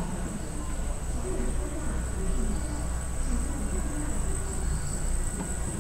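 Airport terminal ambience: faint distant voices over a steady low hum, with a constant high-pitched whine.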